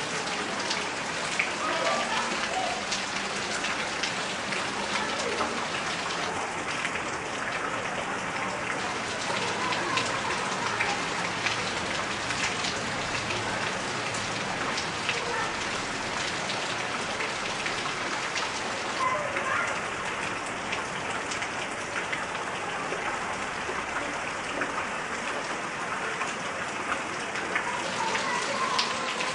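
Heavy rain falling on garden leaves: a steady, dense hiss studded with many separate drop impacts.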